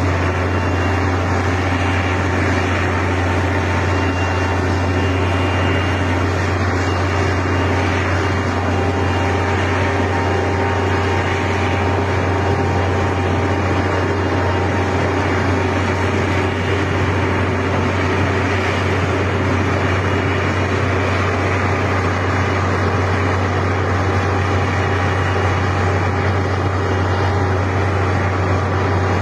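Rotary snow blower cutting through deep snow on a mountain road: a loud, unchanging engine drone with a steady low hum over a dense rushing noise.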